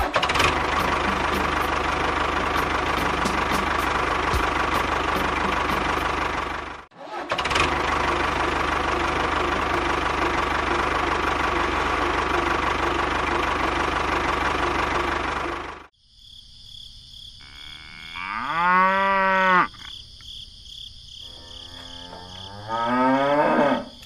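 A tractor engine running steadily for most of the first two thirds, cutting out for a moment about seven seconds in. After it stops, a cow moos twice, one long call and then a shorter one near the end.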